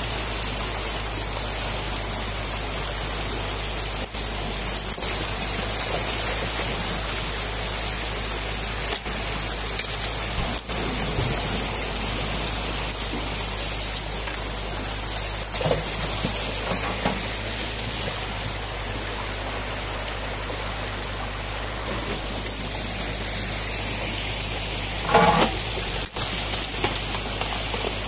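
Water rushing and churning through a breach in a beaver dam: a steady rush of noise, with a few short knocks and a brief louder sound near the end.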